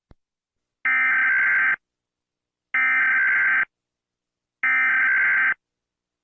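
Emergency Alert System SAME header: three identical bursts of digital data tones, each just under a second long, about two seconds apart, marking the start of an emergency alert broadcast.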